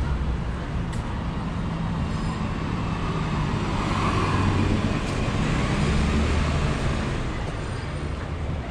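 Street traffic: passing cars and other vehicles with a steady low rumble that swells a little around the middle.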